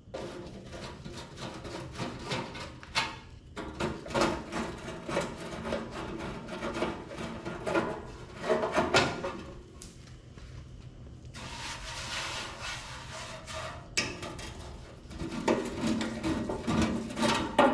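Hand-tool work on the sheet-metal cabinet of a Lincoln AC180S arc welder as its back panel is opened: irregular clicks, knocks and scraping. A steady hiss runs for about three seconds past the middle.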